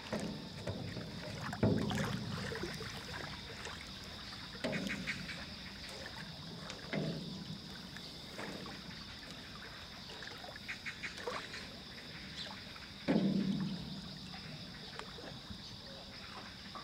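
Hollow thumps and knocks from feet shifting and stepping in a small metal rowboat as it rocks on the water, about six of them a few seconds apart, the loudest about two seconds in and another late on. A steady high hum runs underneath.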